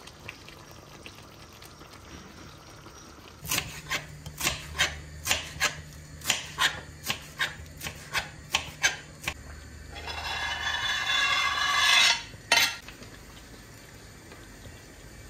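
Kitchen knife chopping parsley on a glass cutting board: about fifteen sharp knocks, a little over two a second. It is followed by a scrape of about two seconds that grows louder, then a single sharp knock.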